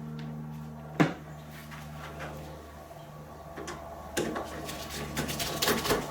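Clicks and knocks of a metal doorknob and latch being handled and fitted, with one sharper knock about a second in and a run of lighter clicks in the second half, over a steady low hum.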